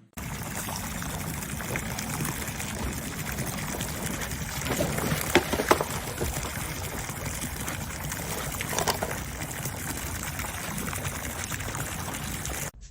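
Water pouring and running steadily, with a few louder splashes about five and nine seconds in.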